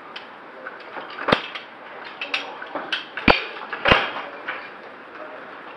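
A series of sharp knocks and clinks of hard objects striking, like gear or boots against hard surfaces. Three stand out as the loudest: one about a second in and two close together past the three-second mark.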